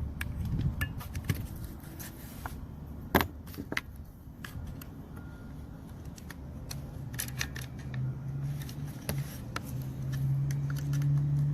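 Small metal and plastic parts of a car door handle assembly clicking and rattling as they are fitted together by hand, with one sharper click about three seconds in. A low steady hum comes in from about eight seconds.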